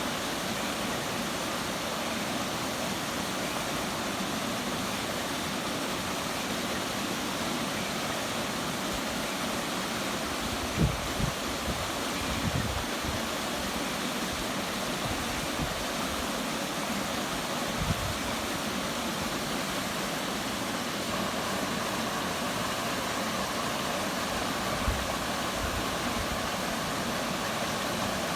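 Waterfall: a steady rush of falling water, broken by a few brief low thumps near the middle and once more near the end.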